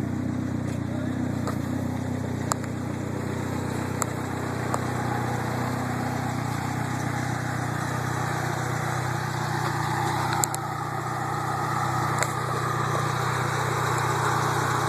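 Dodge Neon SRT-4's turbocharged 2.4-litre four-cylinder idling steadily, with a few light clicks scattered through.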